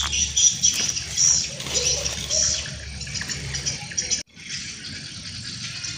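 Small birds chirping in short repeated calls over a low steady rumble; the sound cuts out suddenly for a moment about four seconds in, then a quieter hiss follows.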